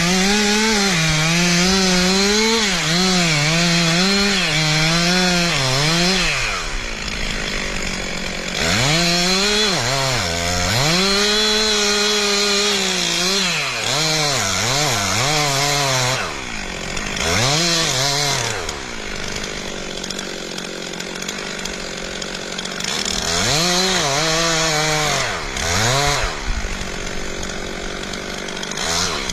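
Two-stroke chainsaw running and cutting wood, its engine pitch rising and falling over and over as the throttle is worked. It drops back to quieter running twice, about a quarter of the way in and again after the middle.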